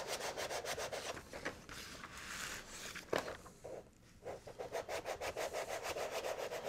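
A plastic smoothing tool scraping in quick, repeated short strokes over a PEI build sheet as it is pressed onto a glass print bed to push out air bubbles. The strokes pause briefly a little past halfway, then carry on.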